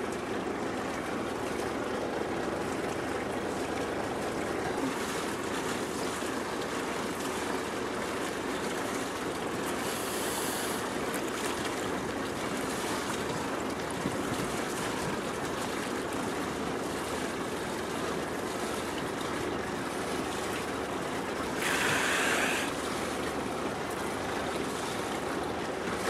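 Steady wash of harbour water lapping and sloshing, with a short hissing burst about ten seconds in and a louder one near the end.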